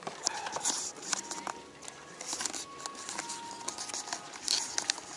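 Close handling noise: fabric rustling and scraping right at the microphone, with many sharp clicks and a few short squeaks.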